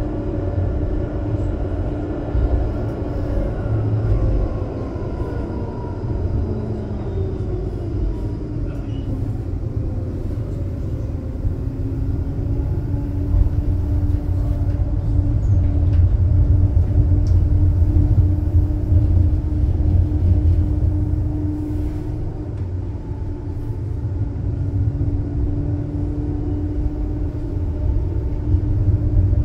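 Ride inside a Škoda Artic X34 light-rail tram in motion: a steady low rumble of the wheels on the rails under the electric drive's whine. The whine falls in pitch over the first ten seconds, then holds one steady tone while the rumble swells for a few seconds.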